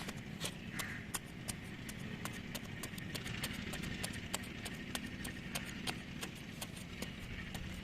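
An engine runs steadily while it cuts earth, under a dense, irregular patter of sharp clicks and knocks, several a second.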